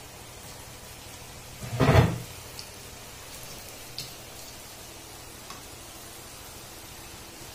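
Babru (sweet wheat-flour fritters) deep-frying in hot oil in a kadai, a steady sizzle. A loud knock about two seconds in, then a few light clicks.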